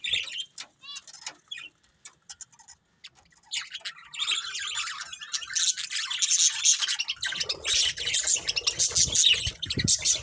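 Budgerigars chirping: a few scattered chirps and a quick trill in the first three seconds, then continuous fast chattering warble from about three and a half seconds in. Low rustling sounds underneath in the last three seconds.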